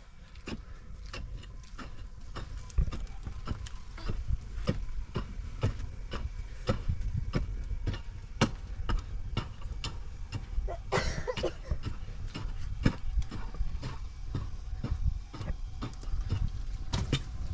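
A run of irregular light knocks and clicks, two or three a second, over a steady low rumble, with a brief louder rustling noise about eleven seconds in.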